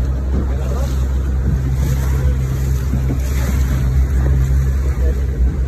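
Small boat's motor running steadily with a low hum, over water rushing against the hull and wind on the microphone.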